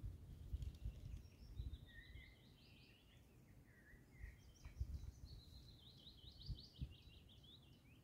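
A songbird singing faintly, two phrases of fast repeated notes, one starting about a second in and one about five seconds in that ends with a falling flourish. Soft low thumps sound underneath.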